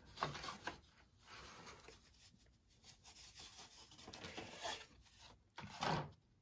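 Faint rubbing and rustling of a printed balsa wood parts sheet being handled and laid over large paper plans, with a louder scrape about six seconds in.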